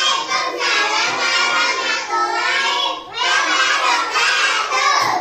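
Young children's voices singing together in chorus, in long phrases with a break about three seconds in.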